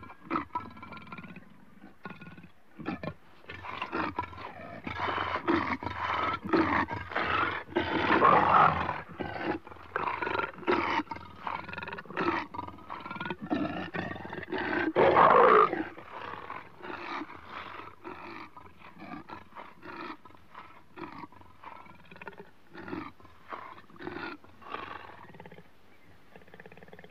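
Wild-sounding animal vocalizations, from a night recording presented as Sasquatch calls: a fast, broken run of short pitched cries and chattering strokes, loudest about 8 and 15 seconds in, then thinning out and growing quieter near the end.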